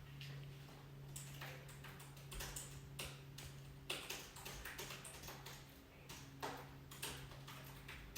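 Irregular light clicks and taps, a dozen or so spaced unevenly, over a steady low hum.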